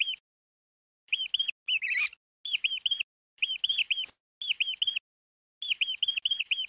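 High-pitched chirping squeaks in quick runs of two to five identical notes, each run separated by a short silence and repeating steadily.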